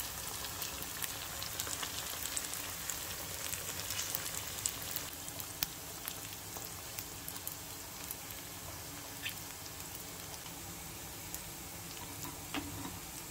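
Shrimp wontons deep-frying in a pan of hot oil: a steady sizzle with many small scattered crackles and pops.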